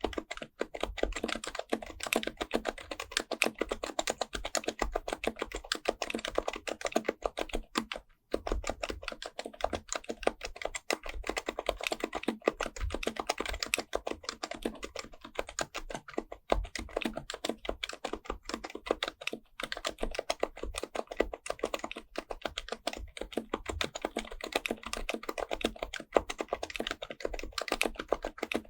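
Fast, continuous typing on an HHKB Professional Type-S keyboard with Topre electro-capacitive switches, modified with BKE 9400a parts: a dense stream of soft, muted keystrokes. The typing pauses briefly about 8 seconds in and resumes.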